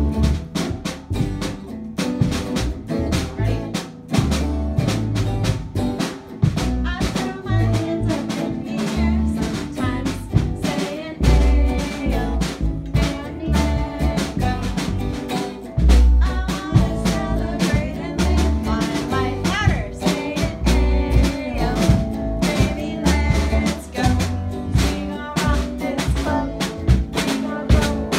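Small rock band playing a song live: a drum kit keeping a steady beat, an electric guitar, and a boy singing into a microphone.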